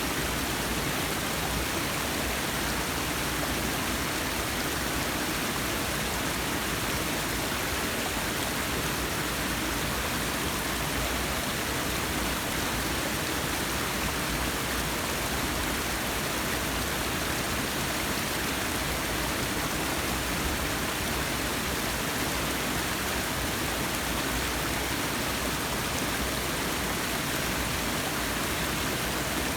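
Forest waterfall: steady rushing of falling water.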